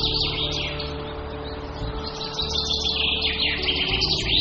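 Many birds chirping in quick, continuous twittering over a steady, low background music drone.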